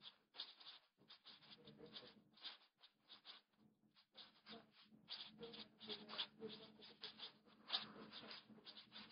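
Marker pen writing words on a white board: a string of short, faint scratching strokes, with a brief pause about halfway through.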